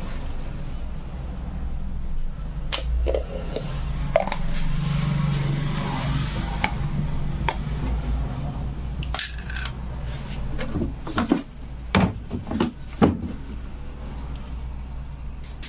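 Small plastic paint tub being handled, its snap-on lid pried off, giving scattered plastic clicks and knocks, with a run of sharper knocks about three-quarters of the way through, over a steady low hum.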